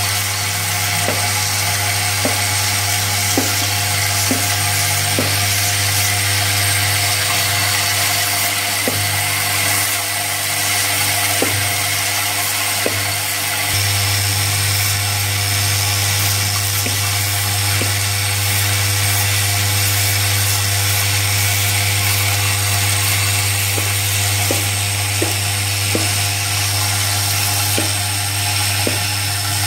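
Vibratory bowl feeder running with a steady low hum, a 400 mm bowl loaded with M8 automotive clip nuts that rattle and clink continuously as they shake along the spiral track, with occasional sharper clicks as single nuts knock against the tooling.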